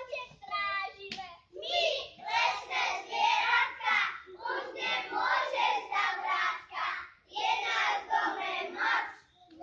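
A group of young children singing together in short phrases, with brief pauses between them.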